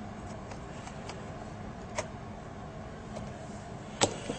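A few light clicks and ticks of a small screwdriver and laptop parts as the last screw of a laptop LCD panel's hinge bracket is tightened, over a steady low hum. A sharper click comes about four seconds in.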